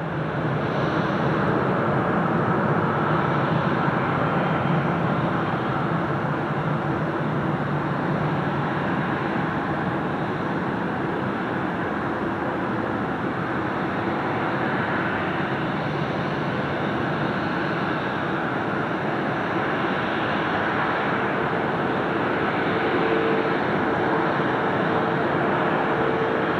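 Jet engines of a Bombardier Global Express business jet running at low taxi power: a steady rumble and hiss that swells in over the first two seconds, with a faint steady whine joining during the last few seconds.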